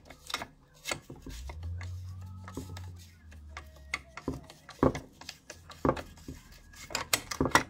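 Screwdriver turning the threaded adjuster bolt on a chainsaw's adjustable muffler outlet, winding it out to open the exhaust hole. It makes scattered metal clicks and taps, with several in quick succession near the end. A low hum starts about a second in and lasts about two seconds.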